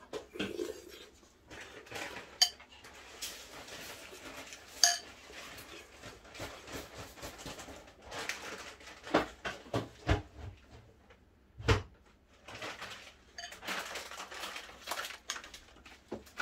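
Cutlery clinking and scraping against bowls and dishes at a meal, with scattered sharp knocks.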